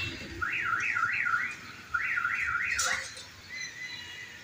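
Electronic alarm warbling: quick rising-and-falling sweeps, about four a second, in bursts of about a second with short gaps, stopping about three seconds in. A faint steady high tone follows near the end.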